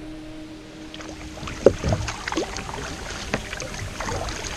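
Kayak being paddled: the paddle blades dip and splash in the water. Several sharp knocks and splashes come from a little over a third of the way in.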